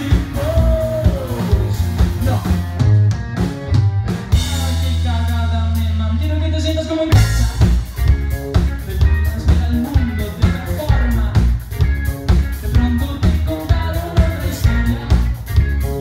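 A live band playing, with a male singer on a microphone over electric guitar, bass and drums. About four seconds in, the drums drop out under a held low note, and the full band comes back in around seven seconds.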